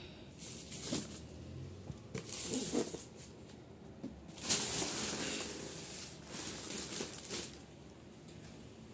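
Thin plastic shopping bags rustling and crinkling as they are handled, in several bursts, the loudest and longest from about four and a half to seven and a half seconds in.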